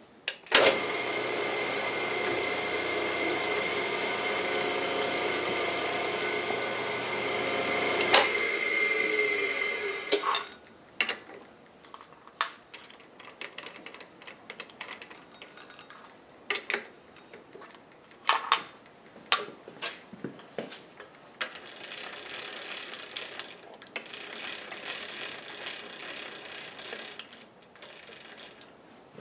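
Drill press running with a steady whine while drilling a set-screw hole through metal parts held in a vise, stopping about ten seconds in. Then scattered clicks and clinks of metal tools being handled at the chuck and vise.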